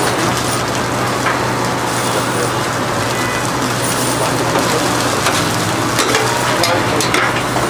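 Meat sizzling and hissing on a shawarma stand's vertical rotisserie, over a steady low hum, with a few light taps and scrapes as a long knife shaves meat off the cone.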